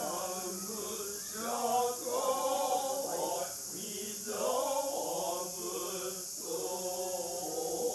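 A noh chorus (jiutai) of men's voices chanting utai in unison to accompany a shimai dance. It is a slow, drawn-out chant that rises and falls in pitch, sung in long phrases with short breaks between them.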